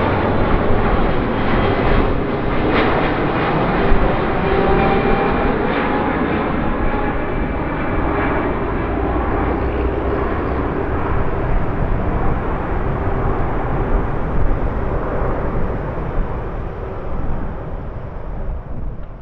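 Jet airliner's engines passing loud, a dense noise with faint steady whining tones in it, fading away over the last few seconds.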